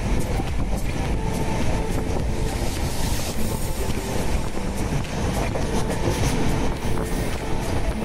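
Howrah Rajdhani Express passenger coach running at speed: a steady rumble of wheels on rails, with irregular clicks as the wheels cross rail joints.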